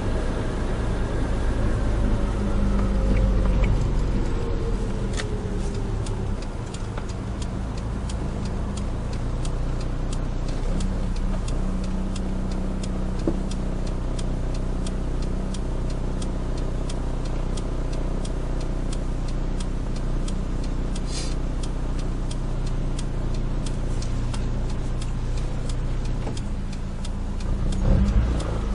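Nissan Micra 1.3 engine running steadily on the move, a low even hum with road noise, and a tone that falls in pitch over the first few seconds.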